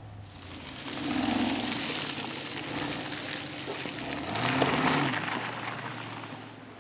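Aston Martin DBX's twin-turbo V8 revving as the SUV drives through mud, the engine note mixed with a rushing, hissing noise of tyres and spraying mud. It swells twice, about a second in and again more strongly about four and a half seconds in, the engine pitch rising in the second surge.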